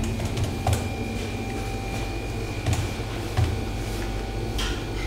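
A steady low hum with a few scattered knocks and rustles: goods and packaging being handled at a shop counter.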